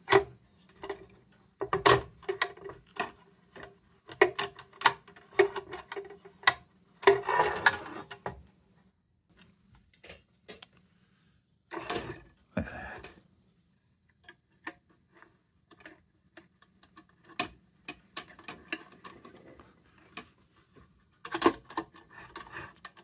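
Metal parts of a Rayo Pony No. 21 lantern clicking and knocking together as it is handled and fitted during reassembly: a busy run of irregular clicks for the first several seconds, then sparser clicks with a couple of louder clusters of knocks.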